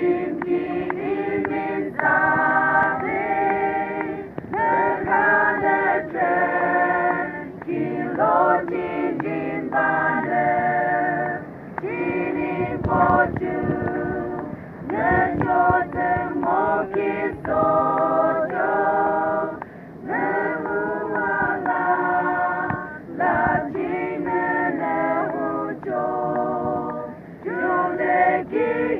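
A mixed group of women and men singing together in unison without instruments, in phrases a few seconds long with brief breaths between lines.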